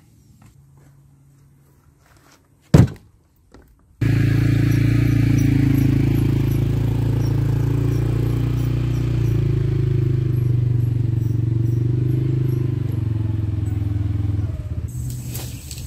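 A piece of firewood dropped onto a wooden trailer bed with one sharp knock. Then, from about four seconds in, a CFMOTO CForce 500 ATV's single-cylinder engine runs steadily as it tows a loaded wood trailer, easing off near the end.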